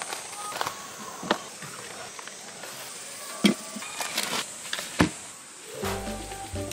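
Bottles, cans and bagged food being packed into a portable camping fridge: three separate sharp knocks of containers set down inside it. Background music starts near the end.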